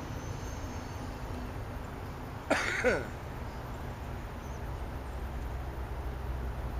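A person coughing twice in quick succession, a short double cough about two and a half seconds in, over a steady low rumble.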